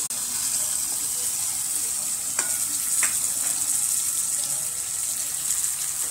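Boiled chickpeas frying in hot tempered oil in a kadhai, a steady sizzling hiss as their water cooks off, with two light clicks about two and a half and three seconds in.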